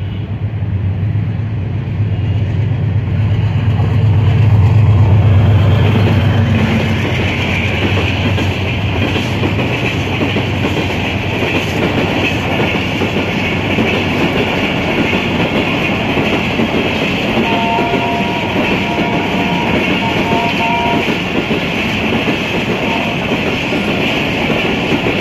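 A train passing close by: a deep engine drone from the diesel locomotive swells about four to six seconds in, then gives way to the steady rolling noise of the carriages on the rails. A few short high tones sound a little past the middle.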